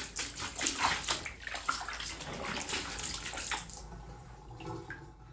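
Water splashing and sloshing in a basket of clothes left to soak, busy for the first three to four seconds and then dying down.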